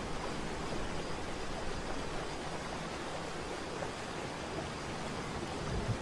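Steady rushing of a large waterfall: an even, unbroken wash of falling water.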